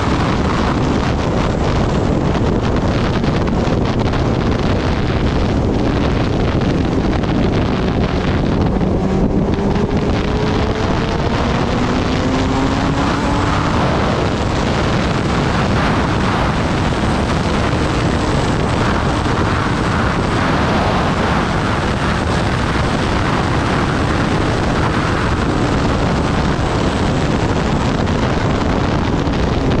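Wind rushing over the microphone at riding speed, with a Kawasaki Ninja ZX-10R's inline-four engine running underneath; around ten seconds in the engine note rises as the bike accelerates.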